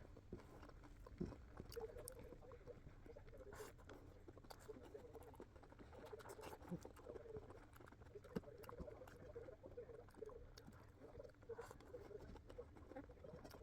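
Faint eating sounds: chewing and small mouth and utensil clicks, scattered irregularly.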